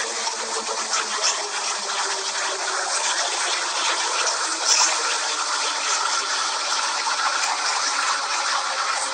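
Subway train running along the platform: a steady noise of wheels and carriages with no break.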